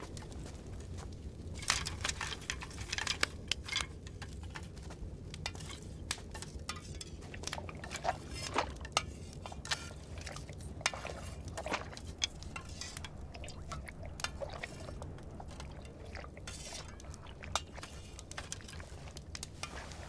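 Water being stirred quickly in a steaming metal wok: a utensil clinking and scraping against the pan with liquid sloshing, in irregular strokes and clicks over a low steady hum.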